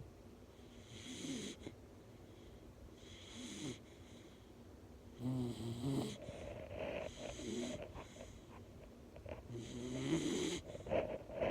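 Bull terrier snoring in its sleep: about five snoring breaths spaced two to three seconds apart, the loudest about halfway through and near the end.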